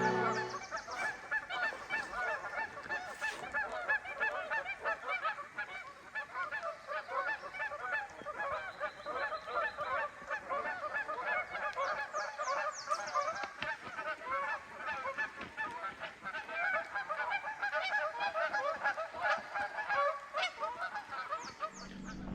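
A flock of geese honking, many overlapping calls at once in a continuous chorus.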